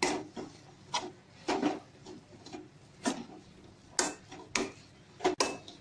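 Spoon scraping and pressing a thick sweet-corn and grated-cheese dough around a nonstick kadai, in a run of short, irregular strokes about every half second to second as the cheese is mixed in.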